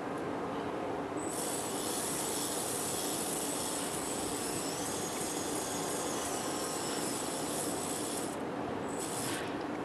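Small electric motor and gear train of an ornithopter wing-flapping mechanism running, a steady mechanical whir with a high hiss. It starts about a second in, cuts out near the end and briefly runs again.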